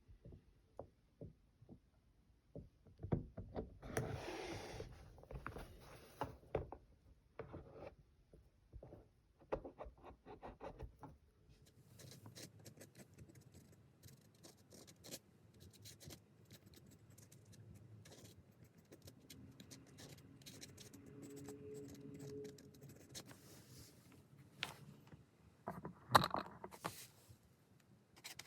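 Close handling noises: irregular scraping and rubbing with small clicks and knocks, busiest a few seconds in and again near the end.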